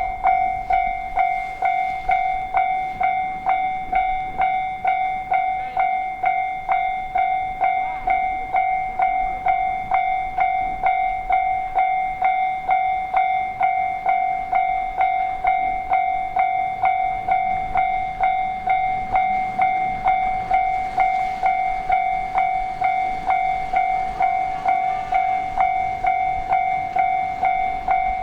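Japanese railway level-crossing alarm bell (kan-kan) sounding, a steady ringing tone struck at a regular pace of about one and a half times a second.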